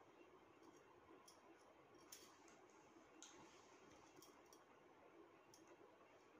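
Near silence with a few faint, scattered small clicks of beads and metal earring parts being handled with a cutter, the sharpest about two and three seconds in.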